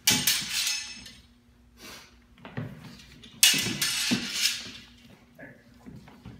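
Steel training longswords clashing blade on blade twice, about three and a half seconds apart, each hit ringing for about a second. Lighter knocks come in between.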